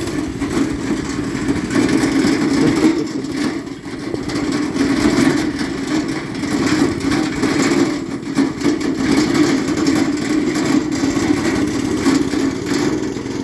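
Small engine running at a fairly steady speed, rising and falling slightly in level, with a short dip about four seconds in.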